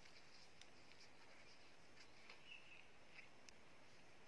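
Near silence in a forest thicket: faint background hiss with one short, high bird chirp about halfway through and a few faint clicks.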